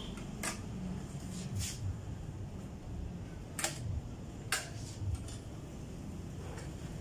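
Metal top cover of a DVR recorder being handled and fitted onto its chassis: about five sharp metallic clicks and taps, spread out, over a steady low background hum.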